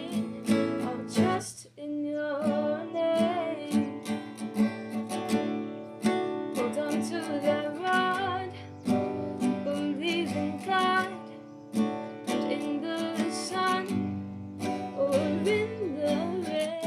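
A woman singing with an acoustic guitar strummed as accompaniment; her voice glides through long held notes over the steady strumming.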